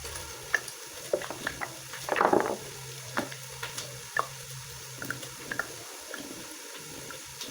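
Food frying in a cooking pot with a steady sizzle, while a spoon stirs and clicks against the pot. There is a louder scrape about two seconds in.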